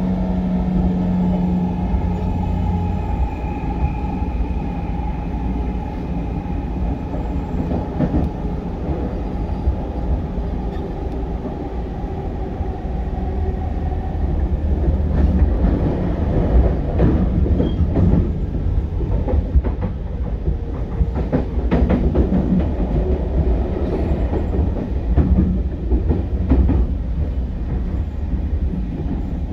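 JR 209-series electric train running, heard from on board, with the steady tones of its GTO-inverter traction drive over a low wheel rumble. The tones fade out about halfway through, leaving the rumble with scattered clicks from the wheels on the rail.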